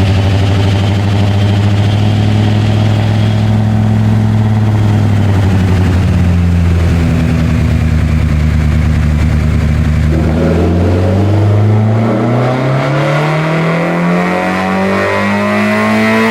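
Toyota AE82 Corolla's four-cylinder engine, fitted with 300/294 cams, running on a chassis dyno. It holds at steady revs for about ten seconds, then the revs climb smoothly and steadily as a pull begins.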